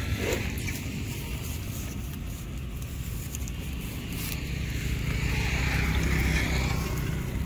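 Low, steady engine rumble of road traffic, swelling between about five and seven seconds in as a motorbike passes.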